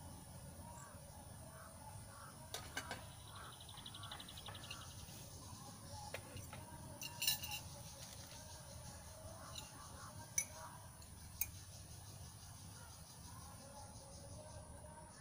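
Scattered metal clinks and knocks of a spoon and pot lid against stainless-steel cooking pots, the loudest about seven seconds in and again near ten seconds, over a faint steady high insect drone.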